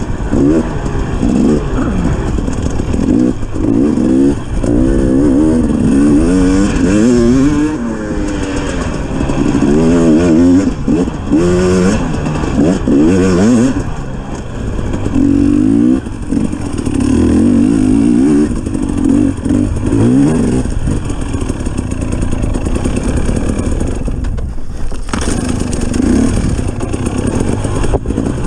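A 250 cc enduro dirt bike's engine revving up and down over and over as the rider works the throttle on a rough trail, with the bike clattering over the ground. Around three-quarters of the way through, the throttle closes for a moment and the engine dips before picking up again.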